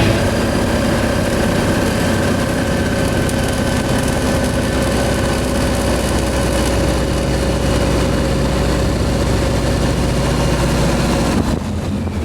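PZL-104 Wilga light aircraft's piston engine running steadily with a constant drone. Near the end it drops in level and sounds duller.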